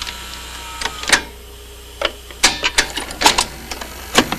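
VCR tape mechanism clicking and clunking: a run of irregular sharp clicks and clunks over a low steady hum.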